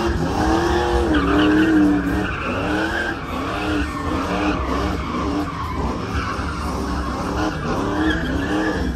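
Vehicle doing a burnout: its engine revving up and down in repeated swells, roughly once a second, over the steady hiss of spinning tyres.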